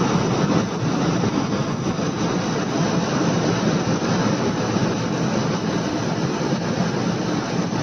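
12,000 BTU portable air conditioner running, its fan blowing a steady rush of air.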